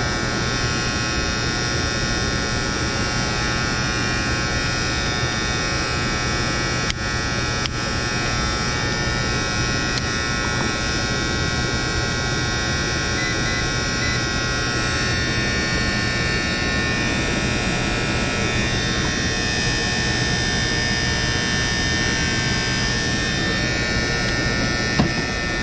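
Steady electrical buzz from the contactor on an air handler's electric heat kit, humming continuously at an even level. A couple of small clicks about seven and eight seconds in.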